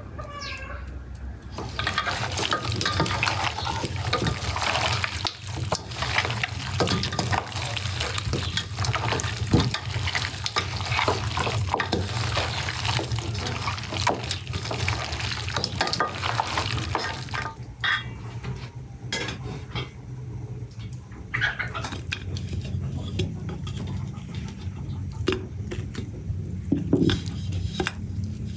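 Water splashing and running with many light clinks, busy for most of the first two-thirds and then easing to occasional knocks, over a steady low rumble.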